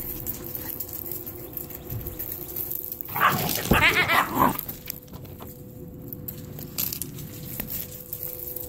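A puppy gives a quick run of four or five yelping barks about three seconds in, over steady scuffing of paws and feet on gravel.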